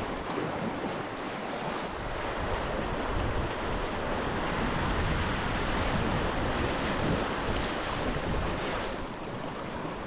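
Rushing whitewater of a fast river rapid heard from a packraft riding through it, with wind buffeting the microphone.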